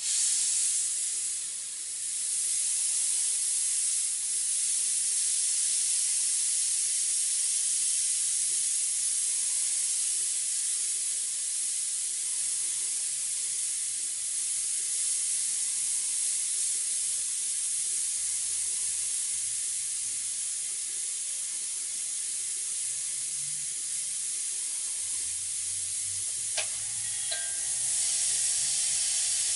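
Gravity-feed airbrush spraying paint: a steady air hiss that starts abruptly, dips briefly about two seconds in, and is broken by a small click near the end.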